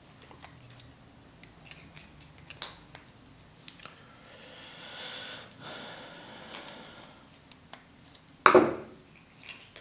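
A screwdriver backing out the small screws of a HIWIN HGH15CA linear guide carriage's end plate: scattered light clicks, a faint rasping of the turning screw for a few seconds in the middle, and one sharp clack about eight and a half seconds in.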